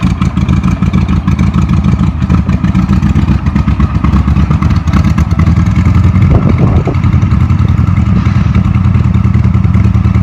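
Caterpillar Twenty-Two crawler tractor's four-cylinder gasoline engine running loud and steady as the tractor works the scraper, with rapid, even firing pulses.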